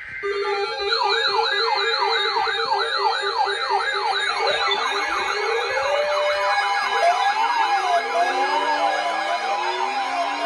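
Several electronic siren tones sounding together. A two-note hi-lo tone alternates from the start, a fast yelp sweeps up and down about three times a second from about a second in, and a slower up-and-down tone with rising glides joins after about seven seconds.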